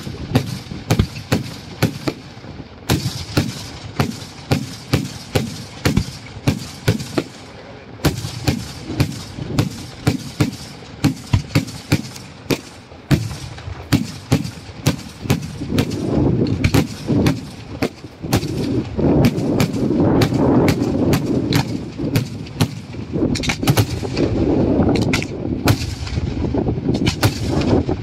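Daytime aerial fireworks going off: a rapid string of sharp bangs, two or three a second. About halfway through, the bangs crowd together into a dense, rumbling barrage of overlapping reports.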